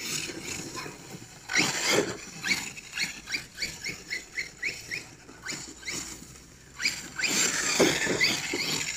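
Brushless electric motor and drivetrain of a 1/8-scale RC truggy whining as the throttle is worked. There are two longer rising revs, one about one and a half seconds in and one near the end, and between them a run of short rising whines about three a second from quick throttle blips.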